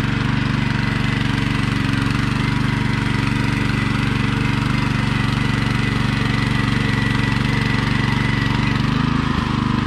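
Engine of a Búfalo walk-behind tiller (motocultivador) running steadily under load as its tines churn the soil. Its note drops just before the end as the engine slows.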